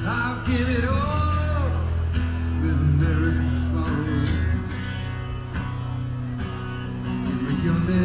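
Live rock band playing over a large outdoor festival PA: a singing voice with guitar over a steady bass line and drum hits.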